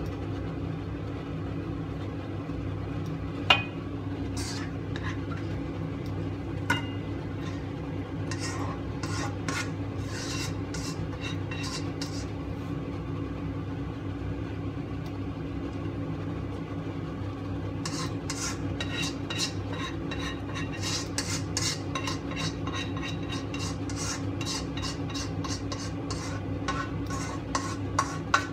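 A metal utensil scraping and tapping against a stainless steel pan as the cooked eggplant and minced pork are scraped out onto a plate, over a steady low hum. There are two sharp knocks early on, a spell of clicking after about eight seconds, and a dense run of scraping from about two-thirds of the way through.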